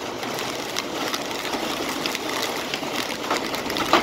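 Heavy wind-driven rain with a dense, rapid patter of sharp ticks, and one louder knock near the end.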